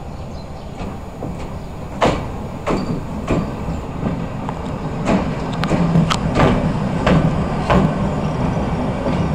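CFR Class 40 electric locomotive rolling slowly past at close range: sharp clicks at a fairly even pace of roughly one every half second begin about two seconds in, typical of wheels passing over a rail joint. Under them runs a steady low hum that grows louder as the locomotive comes alongside.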